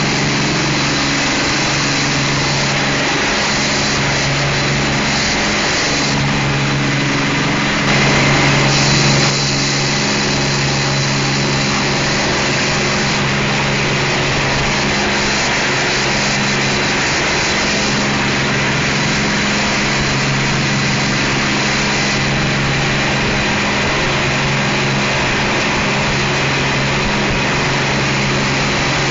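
Twin 600 hp Cummins diesel engines driving Hamilton waterjets at speed, a steady drone under the rush of the churning jet wake. The rush turns briefly louder about eight seconds in.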